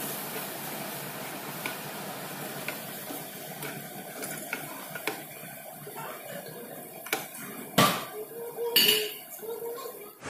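Sliced mushrooms sizzling in a frying pan, stirred with a wooden spatula that clicks and scrapes against the pan. Two louder clatters come near the end.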